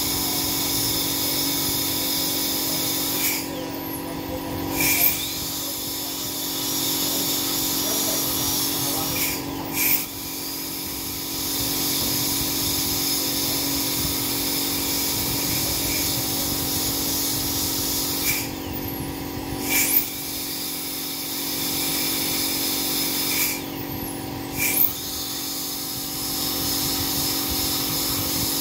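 High-speed dental air-turbine handpiece whining steadily as it cuts an upper front tooth down for a porcelain crown. It stops and spins back up four times.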